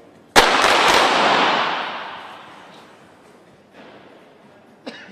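.22 calibre sport pistols of several finalists firing a rapid series together, a dense run of overlapping shots starting about half a second in and fading out over the next two seconds. A single sharp crack comes near the end.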